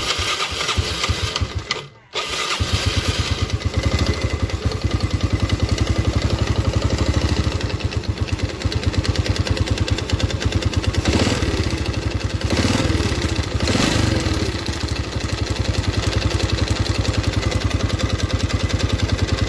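A Yamaha Vega R's single-cylinder four-stroke engine starts up, drops out briefly about two seconds in, then runs unrevved with a loud, rough, rapid ticking beat. The ticking and roughness, together with heavy exhaust smoke, are taken by the mechanic as the sign of a loose, worn piston.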